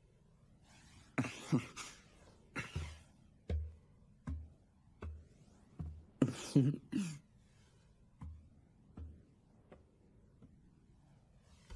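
Anime sword-fight sound effects: a run of short dull thuds about every three-quarters of a second, broken by a few loud slashing swooshes with a falling growl-like voice, as a sword cuts through zombies. The thuds grow fainter near the end.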